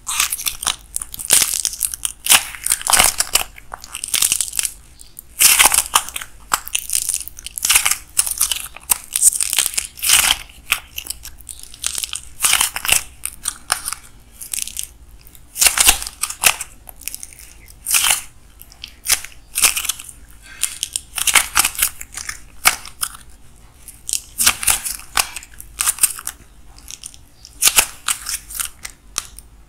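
Red modelling clay with a dried, cracked crust being squeezed and torn apart by hand, giving irregular bursts of crisp crunching and crackling.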